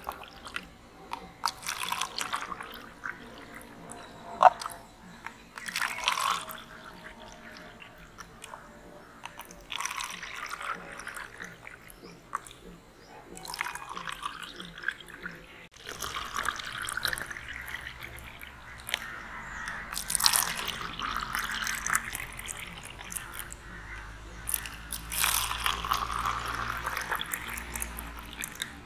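Pineapple juice poured in a stream from an aluminium pot into plastic cups, splashing as each cup fills, in repeated pours; the later pours are longer. A single sharp knock about four seconds in.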